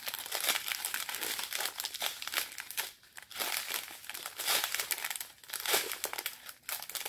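Strip of small clear plastic bags of round diamond-painting drills crinkling as they are handled and unfolded, on and off, with short pauses about three seconds in and again near the end.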